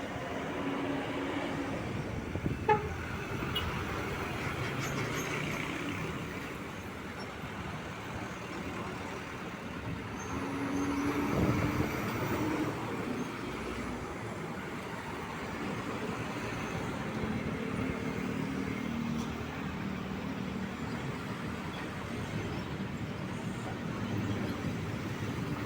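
Heavy trucks running on a road: steady engine and tyre noise, with a few short truck-horn toots along the way. A single sharp knock a little under three seconds in.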